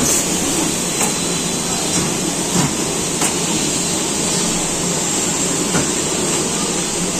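Heat-shrink tunnel running: a steady blower hiss, with a few faint clicks now and then from the mesh conveyor carrying film-wrapped packs of water bottles.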